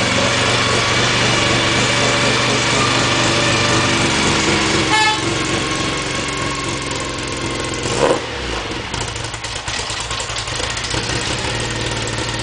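Tuned Mini 1380 A-series engine running steadily on its first start after a complete rebuild. A short high beep comes about five seconds in. A quick rise and fall in pitch comes about eight seconds in, after which the engine runs a little quieter.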